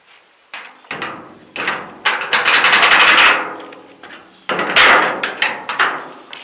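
Sheet-steel garage doors being shut and latched: a few metal knocks, then a long rattling clatter of the steel leaves and rusty hasp about two seconds in, and a second loud clang about four and a half seconds in, followed by lighter clicks.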